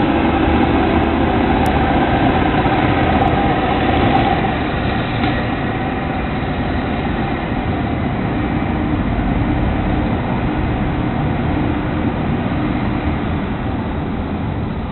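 Engine of a long-reach demolition machine with a claw attachment running steadily. It is a little louder for the first four seconds, then settles to an even level.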